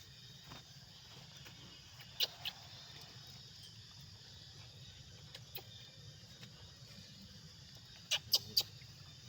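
Monkey giving short high-pitched squeaks, two about two seconds in and three in quick succession near the end, over a faint low steady hum.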